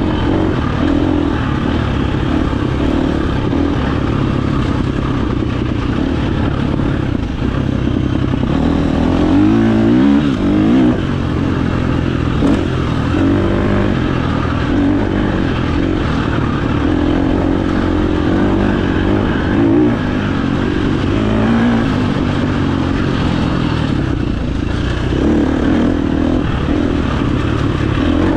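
KTM 350 XC-F dirt bike's single-cylinder four-stroke engine running hard while ridden, the revs climbing and dropping again and again with throttle and gear changes.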